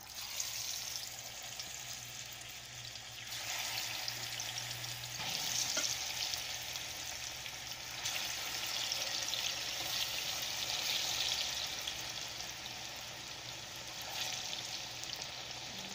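Sliced plantain frying in hot oil in a pan: a steady sizzle that starts as the first slice goes in and gets louder twice in the first few seconds as more slices are added.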